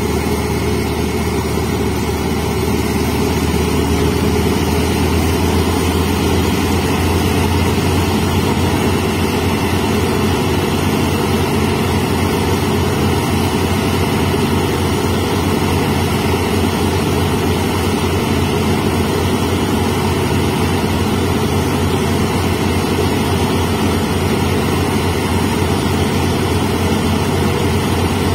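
Large diesel locomotive engine idling steadily with a low, even throb, growing slightly louder about four seconds in.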